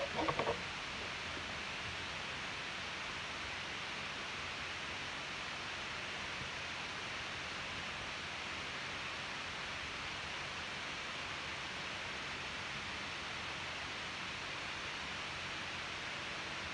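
Steady, even hiss with nothing else over it: constant background noise of the recording.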